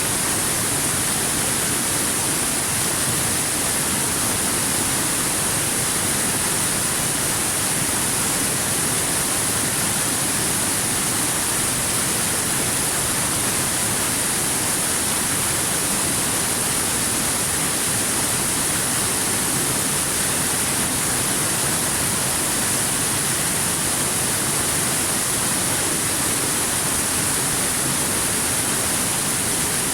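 Waterfall: water falling and rushing in a steady, unbroken hiss with a bright top, like white noise, without change.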